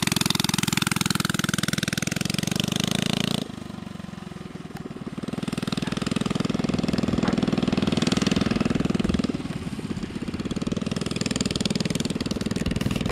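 Coleman CT100U mini bike's small single-cylinder four-stroke engine running on throttle as the bike rides laps. It is loud at first, drops suddenly about three and a half seconds in, then rises and falls again as the bike goes round.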